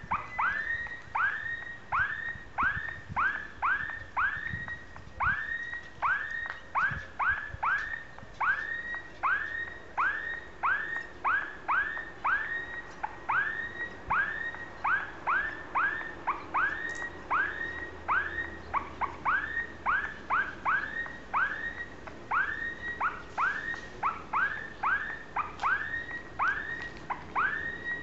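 Level crossing warning signal sounding: a repeated electronic tone, about two a second, each sliding quickly up in pitch and then holding, warning that a train is approaching.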